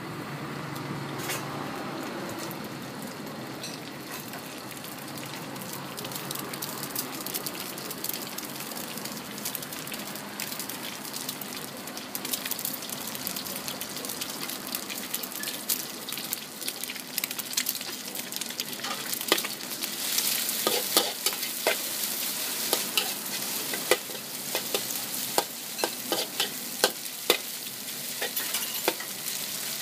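Egg and sliced beef sizzling in hot oil in a wok, a steady frying hiss. A metal spatula scrapes the wok, and in the last third its strokes turn into frequent sharp clanks against the pan.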